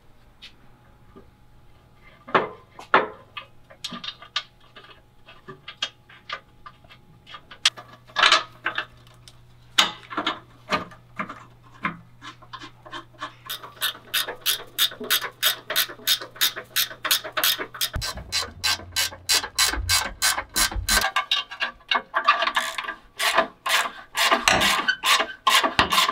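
Hand ratchet wrench turning bolts: scattered clicks at first, then a fast, even run of clicks, about five a second, for several seconds, and dense clicking again near the end.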